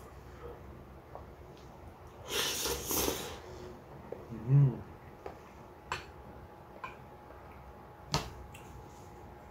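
Kitchen handling sounds while cooking: a rustling scrape about two seconds in, a short low hum a little later, then a few sharp clicks and taps of utensils or cookware.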